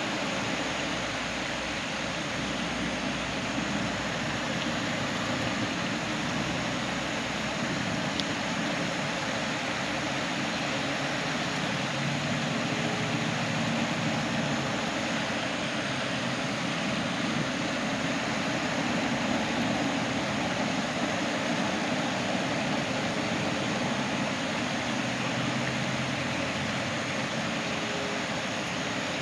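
Steady, unbroken rushing noise with no speech.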